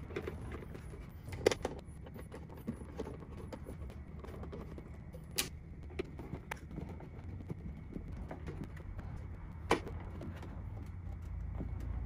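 Scattered light clicks and taps of hands handling and seating the cover of a wall-mounted Tesla Wall Connector, the sharpest about 5 and 10 seconds in, over a steady low hum.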